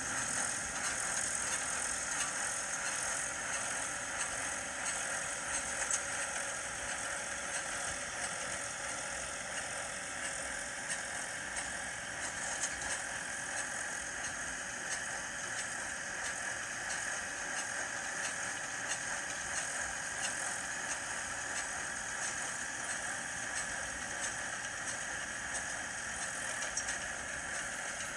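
Farm machinery running at work: a steady mechanical clatter and rattle that holds the same without a break.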